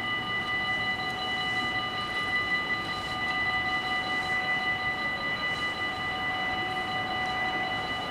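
Dutch automatic half-barrier level crossing warning bells ringing without a break, a steady high ring of several tones. They signal that the barriers are down and a train is approaching.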